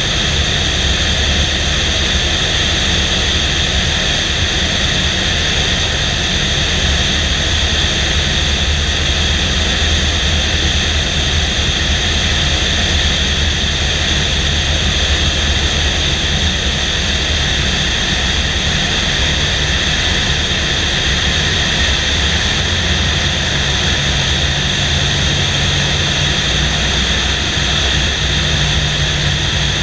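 Luscombe 8A light airplane in flight: a steady drone of its piston engine and propeller under a loud rush of wind over an outside-mounted microphone. A lower engine tone comes in near the end.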